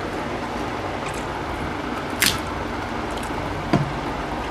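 Eating sounds of rice and curry eaten by hand: soft squishing of food and a few brief sharp clicks and smacks, the sharpest about two seconds in, over a steady background hiss.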